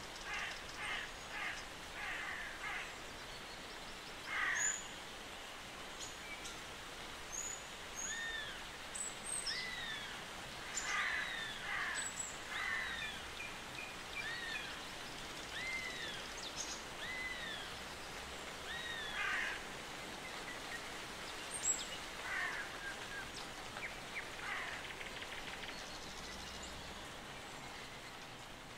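Wild forest birds calling over a steady outdoor hiss. Harsh, crow-like calls come in short bursts, and a run of short arched whistled notes repeats about once a second through the middle, with thin high chirps scattered throughout.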